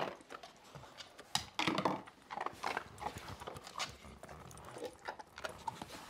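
Golden retriever nosing plastic cups and yogurt tubs about on a wooden floor for kibble: irregular light knocks and clatters, loudest about one and a half seconds in.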